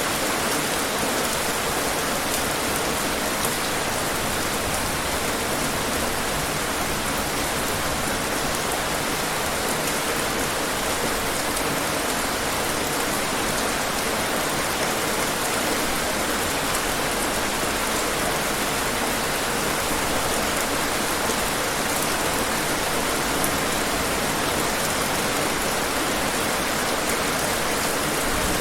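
Steady rain: an even, unchanging hiss of rainfall with scattered sharper drops.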